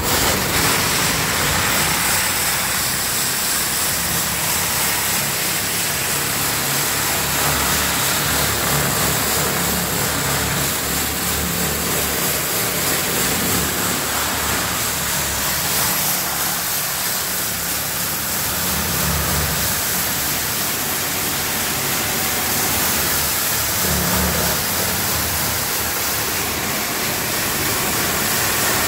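High-pressure washer jet spraying against the steel mixer drum and frame of a ready-mix concrete truck, a loud, steady hiss of water, with a low engine hum underneath.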